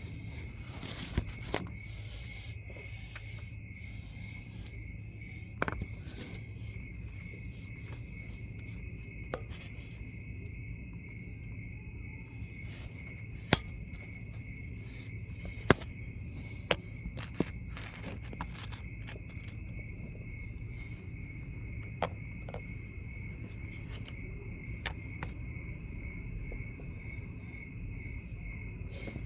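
Crickets chirping steadily in a fast, even trill. Scattered sharp clicks and clinks sound over them, with a low steady hum beneath.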